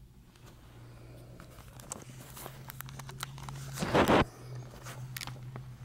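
Handling noise from a phone camera being picked up and turned around by hand: scattered clicks and rustles, with a loud rubbing noise about four seconds in, over a steady low hum.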